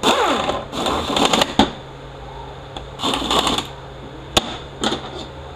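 Small handheld air tool running in three short bursts as it drives bolts into a transmission valve body, its motor whining down in pitch after the first. A few sharp clicks follow.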